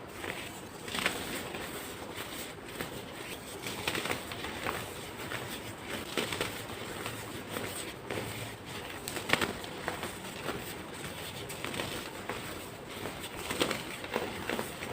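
Compacted baking soda being crushed and crumbled, an irregular run of dry crackly crunches with a few sharper, louder ones.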